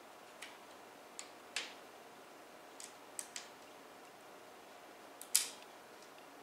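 Sharp clicks and taps of small computer parts being handled and fitted while a drive is mounted in a PC case: about nine separate clicks, unevenly spaced, the loudest a little after five seconds in.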